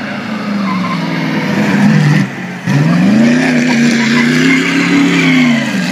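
Vintage straight-eight racing car engine accelerating hard, its revs climbing. The note drops briefly about two seconds in, then climbs again and holds high.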